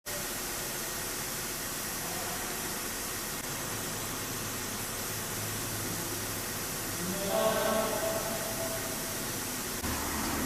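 Steady airy hiss of background machinery or room noise. A brief voice sounds in the background about seven seconds in, and a low hum sets in near the end.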